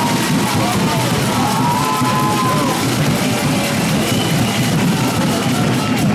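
Rock music with drums and guitar, playing steadily.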